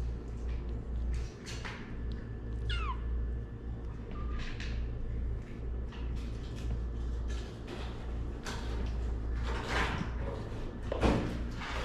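A kitten mews once about three seconds in, a short high cry falling in pitch. Scuffs and rustles of a kitten moving on a coir doormat come and go, the loudest near the end, over a steady low hum.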